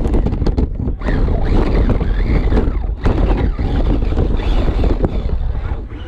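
Wind buffeting the microphone: a heavy, steady low rumble, with scattered clicks and faint higher sounds over it.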